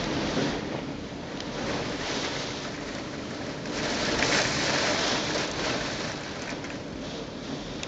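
Typhoon wind and rain, a steady rushing noise that swells briefly about four seconds in.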